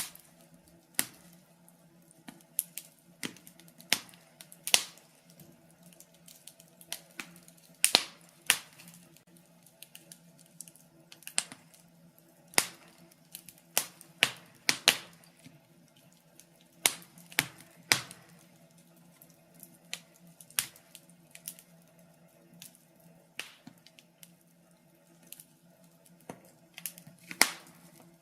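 Wood fire burning in a fireplace, crackling and popping irregularly with sharp snaps, a few every second or two, over a faint steady hum.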